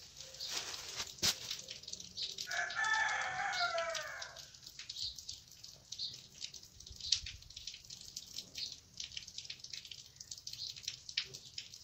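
A rooster crows once, a single long call of about two seconds, near three seconds in. Scattered light clicks and rustles run through the rest.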